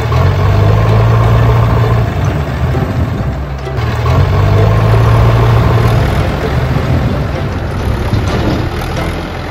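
Tractor engine running steadily, louder for about two seconds at the start and again for about two seconds from four seconds in.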